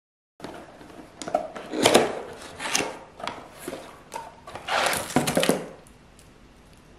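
Household objects being handled on a hard surface: a run of irregular light knocks, taps and rustles lasting about five seconds.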